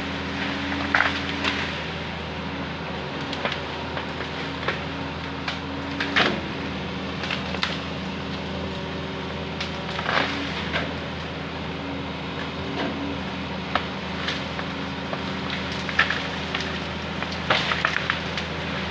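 Hitachi hydraulic excavator's diesel engine running steadily, with sharp cracks and snaps of branches and brush breaking as the machine works through vegetation, scattered irregularly throughout.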